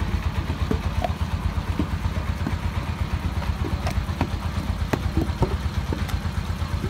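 An engine running steadily with a fast, low pulsing beat. Scattered sharp knocks and clicks sound over it.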